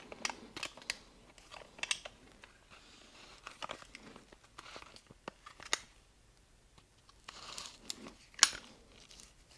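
Small metal clicks and light scraping as a piston with its rings is worked into a band-type piston ring compressor and the compressor is tightened around it, with one sharper click near the end.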